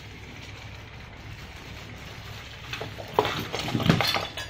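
A steady low hum, then about three seconds in a short run of sharp clicks and clattering, with a couple of louder knocks near the end.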